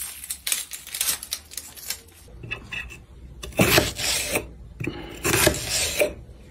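Kitchen knife working an onion: quick short scrapes as the skin is trimmed off, then two longer, louder rasping slices through the onion onto a wooden cutting board.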